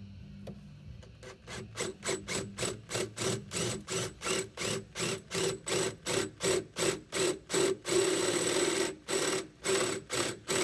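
Cordless drill with a 17/32-inch twist bit cutting through the van's undercoated sheet-metal body, enlarging a pilot hole to its final size for a rivet nut. The cutting pulses about three times a second, with a steady stretch of about a second near the end.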